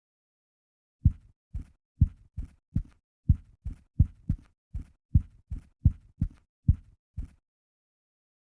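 A run of about sixteen dull thumps, two to three a second and unevenly spaced, stopping a little after seven seconds in.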